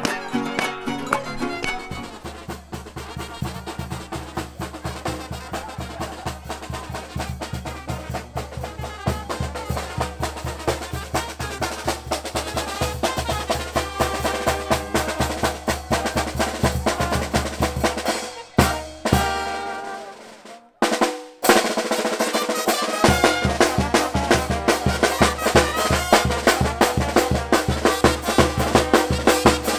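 Street brass band playing carnival music: a bass drum on a stand and a snare drum keep a steady beat under brass horns. The music drops out briefly about two-thirds of the way through and then picks up again.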